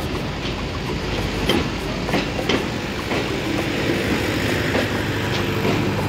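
Bangladesh Railway intercity passenger coaches rolling past close by: a steady rumble with the wheels clicking over the rail joints.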